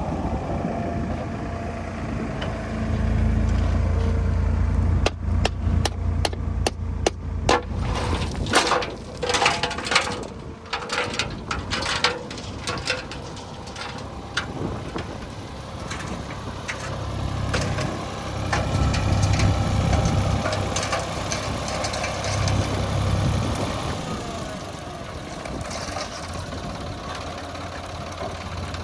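Heavy diesel engine running, louder twice as it works. In between comes a run of sharp clanks and knocks.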